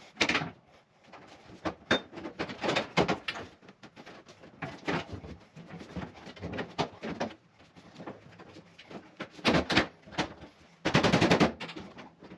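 Knocks, clicks and clatter of dryer cabinet panels and parts being fitted during reassembly, with a quick rattling run of clicks near the end.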